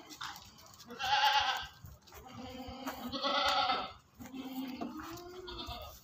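Sirohi goats bleating: two loud, high bleats about one and three seconds in, with lower, deeper calls between them and near the end.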